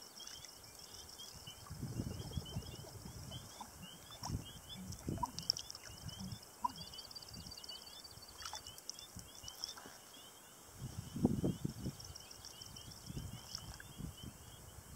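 Canoe moving through still marsh water: water swishing and sloshing along the hull with paddle strokes now and then, loudest about two seconds in, around four to five seconds, and again just past eleven seconds. A steady chorus of rapid, high repeated chirps from marsh wildlife runs behind it.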